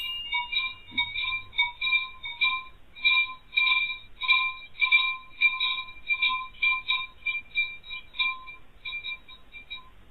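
Small metal chimes tinkling in irregular clusters, several strikes a second at the same few pitches, thinning out near the end. Heard through a security camera's microphone, which makes it thin and narrow.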